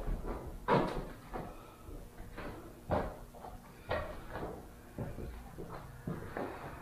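Footsteps on bare wooden floorboards: a string of dull knocks at irregular spacing, roughly one a second.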